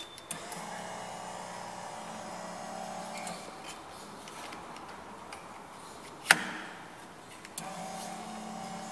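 Battery-powered electric lift motor of a semi-electric stacker running with a steady hum, in two runs: one of about three seconds at the start, and another starting a little before the end. A single sharp knock about six seconds in.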